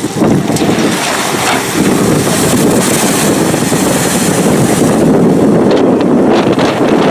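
An amphibious tour bus enters a river down a ramp and ploughs through the water, throwing up spray, with steady, loud rushing and splashing water and wind buffeting the microphone.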